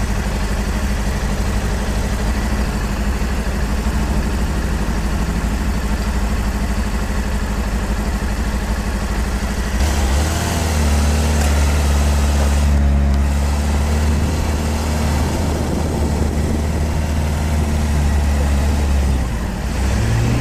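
Sport motorcycle engine running at idle and low revs, with a steady noise haze over the microphone. A deeper, stronger drone sets in about halfway through and holds until shortly before the end.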